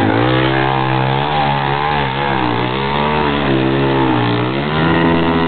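Off-road dirt bike engine running close by, its pitch rising and falling as the throttle is worked through deep mud, climbing again near the end.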